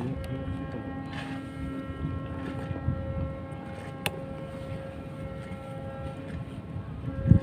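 Steady engine hum made of a stack of even tones, over wind rumbling on the microphone. A sharp click comes about four seconds in, and a loud thump just before the end.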